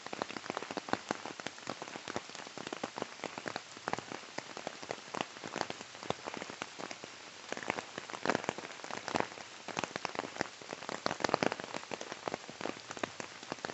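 Water of the flooded Saluda River rushing and splashing over rapids: a dense, irregular crackle of splashes over a steady wash.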